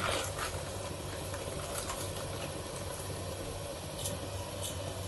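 A steady low hum runs throughout, with a few faint light ticks around four seconds in as salt is sprinkled by hand into a pot of masala.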